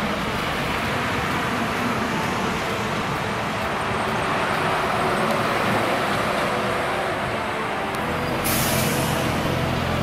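Heavy articulated trucks passing with their diesel engines running. About eight and a half seconds in, a sharp air hiss of about a second and a half, a truck's air brakes releasing, as a deeper engine drone comes in.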